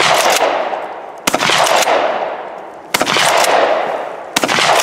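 Pump-action shotgun firing three shots about a second and a half apart, each with a long echoing tail, with the tail of a previous shot at the start.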